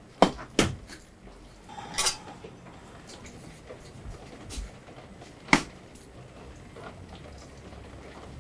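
Sharp clinks and knocks on a large stainless steel tray while a sturgeon is gutted by gloved hands. Two come close together near the start, one about two seconds in and another about five and a half seconds in, over quiet handling.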